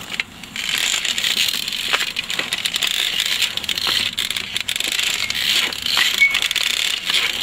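Metal stilts rattling and clinking as they step through long grass, irregular sharp clicks over a steady hiss.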